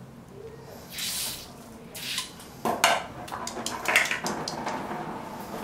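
Ear-cleaning fluid squirted from a squeeze bottle into a cat's wax-filled ear canal during ear irrigation: two short hissing squirts, then a run of clicks and rustling as hands work the ear on a steel exam table.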